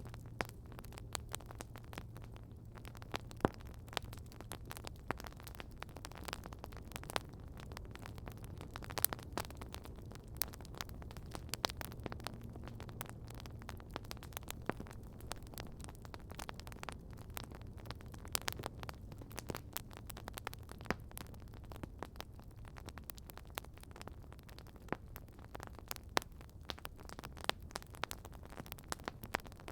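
Campfire crackling: irregular sharp pops and snaps from burning wood over a steady hiss. A faint low hum runs underneath and fades out about two-thirds of the way through.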